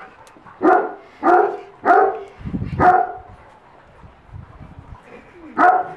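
A dog barking: four barks in quick succession in the first three seconds, then one more near the end.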